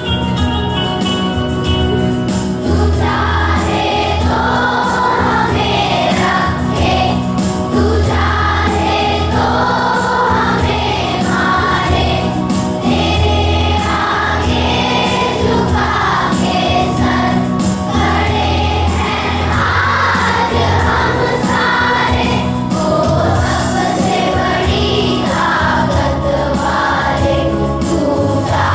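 A song sung by a group of voices over instrumental backing with a steady bass. The voices come in after a short instrumental opening.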